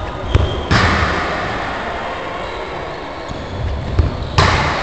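A handball kicked twice, each time a low thud of the planted foot and then a sharp slap of foot on ball that echoes in the sports hall; the second kick comes about three and a half seconds after the first.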